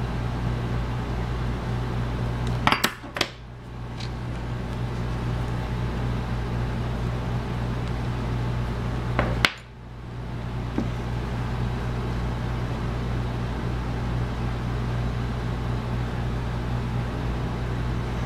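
Steady low hum in the room, with a cluster of sharp clicks about three seconds in and a single sharp click about halfway through, as a corncob pipe is relit with a lighter.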